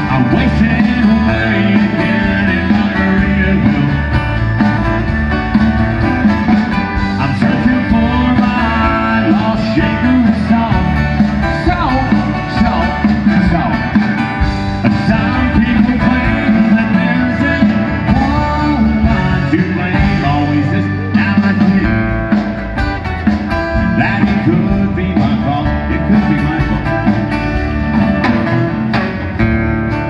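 Live band playing a country-flavoured song through a PA, with acoustic and electric guitars, drums and a singer.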